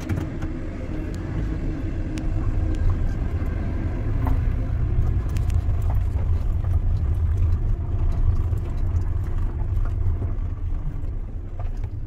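Toyota car running and driving off, heard from inside the cabin as a steady low rumble.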